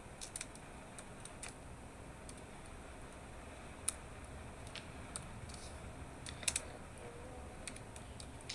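Faint, irregular light clicks and taps, a dozen or so scattered over a quiet room hiss, the sharpest about four and six and a half seconds in.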